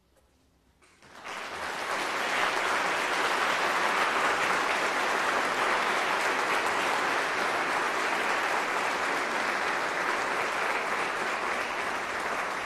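Audience applauding after a moment of quiet. The applause breaks out about a second in, swells within a second, and then holds steady and dense.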